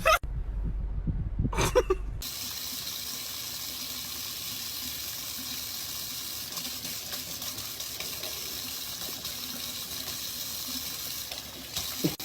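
Steady hissing rush like water running from a tap, setting in about two seconds in after a short pitched sound.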